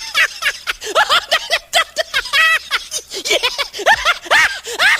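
High-pitched laughter in a rapid run of short, rising-and-falling hoots, with a brief break partway through.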